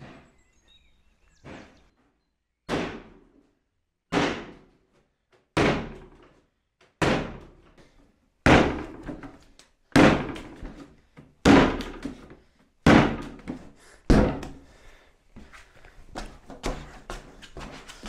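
A ball of wheat-rye yeast dough slapped down hard onto a wooden table and folded over by hand, slap-and-fold kneading that develops the gluten: a thud about every one and a half seconds, growing louder, then quicker, softer knocks near the end as the dough is worked.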